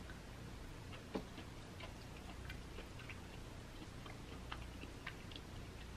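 Faint, scattered small clicks and ticks as cooked crab meat is picked apart by hand, with one slightly louder click about a second in, over a low steady hum.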